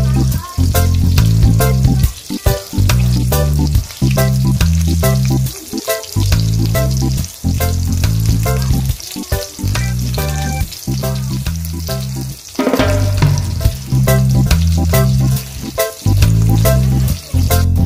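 Milkfish frying in hot oil in a pan, a steady sizzle with small crackling pops, under background music with a repeating bass line.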